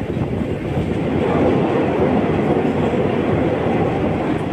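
Passenger train running along the rails, heard from inside a carriage: a steady rumble of wheels on track that swells a little from about a second in as the train crosses a steel truss bridge.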